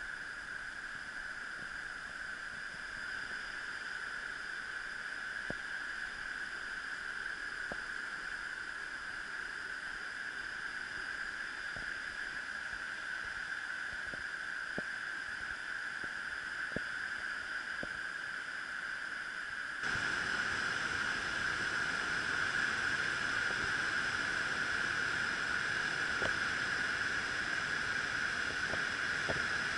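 Steady rushing of a river in flood, a dull even hiss that gets louder in a step about twenty seconds in.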